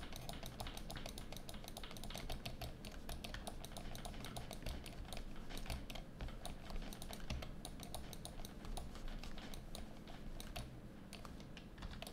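Computer keyboard clicking rapidly and irregularly, several clicks a second, over a low hum.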